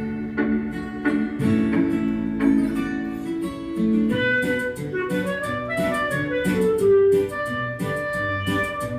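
Instrumental music: plucked guitar accompaniment, with a clarinet melody of held, sliding notes coming in about halfway through.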